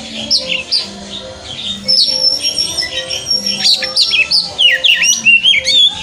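Oriental magpie-robin singing a rapid, varied song of whistled notes that sweep up and down, growing denser and louder about two seconds in.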